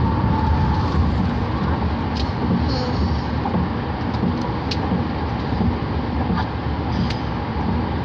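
Road noise inside a moving car: a steady low rumble of tyres and engine.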